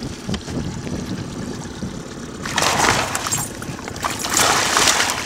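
Muskie thrashing in a landing net at the boat's side, throwing water: two loud bursts of splashing, the first about two and a half seconds in and the second near the end, over a low steady rumble.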